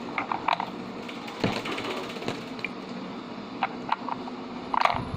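Scattered plastic clicks and knocks from a small toy vending machine being handled while its fallen toy items are put back in place.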